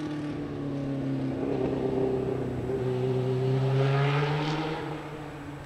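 Motorcycle engine pulling away up the road after passing by. The revs climb and drop at two upshifts, about halfway through and near the end, and the sound then fades into the distance.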